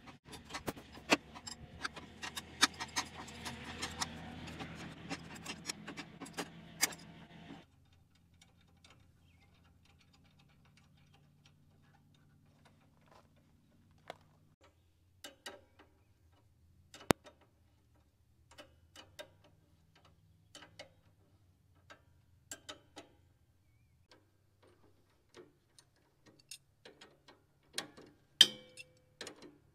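Welder laying a weld on steel for about seven and a half seconds, a crackle full of sharp pops over a low hum, then stopping abruptly. After that, scattered light metallic clicks and taps.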